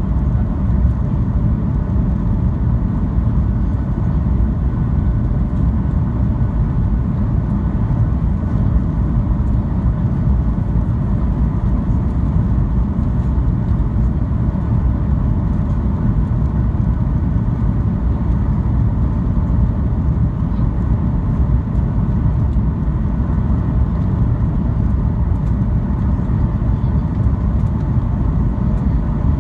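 Steady low rumble of engine and airflow noise inside the cabin of a Boeing 737 airliner, even and unchanging throughout.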